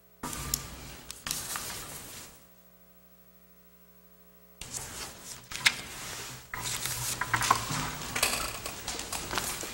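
Sheets of paper rustling and being shuffled, with small knocks and clicks on a table close to the microphones. There is a lull of about two seconds in the middle.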